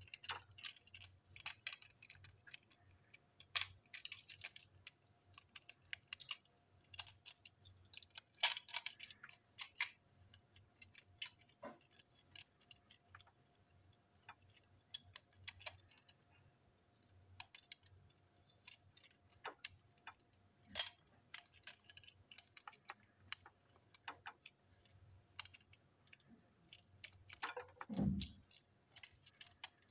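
Plastic parts of a battery-powered toy train clicking, tapping and rattling as they are handled and fitted together, in scattered small clicks. Near the end there is one louder, dull thud.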